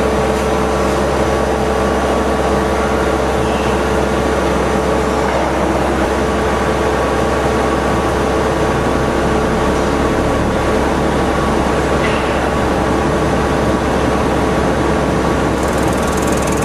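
CNC machining centre running steadily as an inertia-actuated back-spotfacing tool spins in a cast-iron part: a constant mechanical hum and whir.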